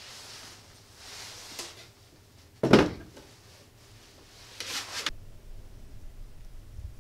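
A large boombox being set down on a desk: one sharp, heavy thump about two and a half seconds in, with rustling as it is handled before and after.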